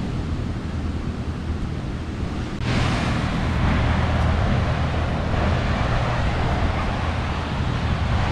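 Wind buffeting the microphone over the steady rush of ocean surf, with the hiss growing louder about two and a half seconds in.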